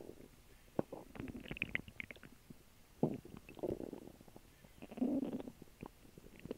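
Human stomach gurgling and rumbling, picked up by a small microphone held against the bare belly: an irregular string of gurgles and short clicks, with the strongest about three and five seconds in. It is the sound of the stomach digesting a recent meal and water.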